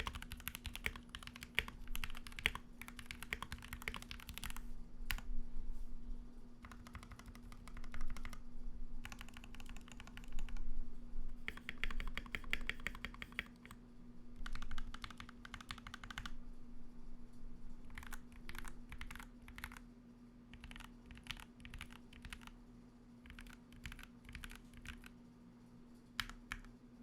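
Typing on a Royal Kludge RK68 mechanical keyboard fitted with lubed Gateron Milky Yellow linear switches, PBT keycaps and foam, tape and band-aid mods. Fast runs of keystrokes come in bursts with short pauses and thin to scattered key presses near the end, over a faint steady hum.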